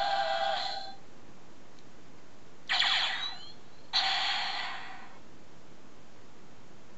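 Electronic sound effects from the Power Rangers Legacy Blade Blaster toy's small built-in speaker, thin with no bass. The end of a music clip stops about a second in, then comes a short zap with sliding pitch, and about a second later a second blast that fades away.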